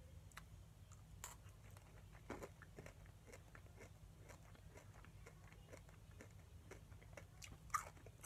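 Faint chewing of a peanut butter M&M, its candy shell giving scattered small crunches.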